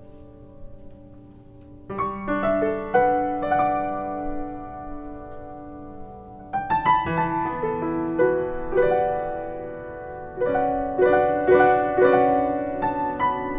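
Solo piano playing an instrumental introduction: a held chord dying away, then broken chords with notes struck one after another, growing louder at about two seconds and again about halfway through.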